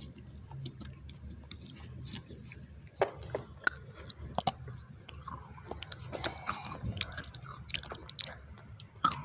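A child chewing and biting into a small snack close to the microphone, with scattered sharp clicks, the loudest about three seconds in and near the end.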